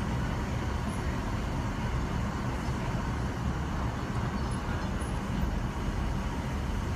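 Steady rush of air from a vertical indoor-skydiving wind tunnel, its fans driving the airflow that holds a flyer aloft, strongest in the low rumble.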